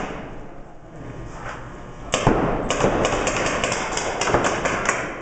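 Paintball markers firing, a few scattered shots at first, then a sharp crack about two seconds in starts a fast string of pops, about six or seven a second.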